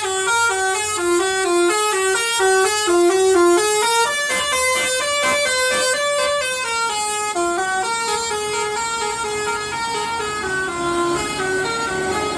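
Bus telolet horn, a multi-tone air horn, playing a quick tune of short notes stepping up and down in pitch, with one longer held note from about four to seven seconds in.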